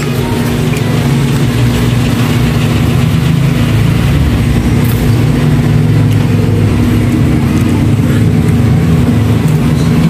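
A loud, steady low mechanical hum of a running motor, holding an even pitch throughout.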